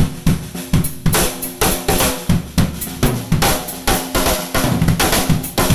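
Drum kit playing a steady beat: bass drum, snare and cymbal hits, several a second.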